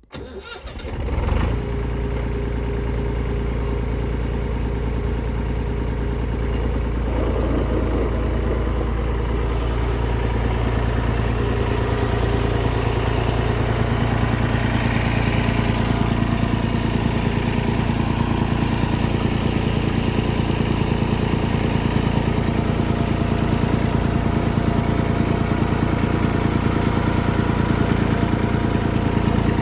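Massey Ferguson 550 tractor's diesel engine starting up within the first second or two, then running steadily; the engine note changes about seven seconds in.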